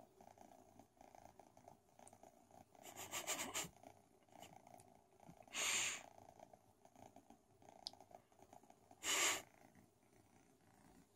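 Kitten purring steadily under a stroking hand, with three short, louder rustles of the hand brushing its fur about three, six and nine seconds in.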